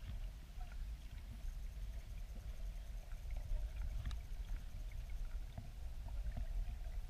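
Muffled low rumble of river water flowing past an underwater camera sitting on the riverbed below a small weir, with faint scattered clicks.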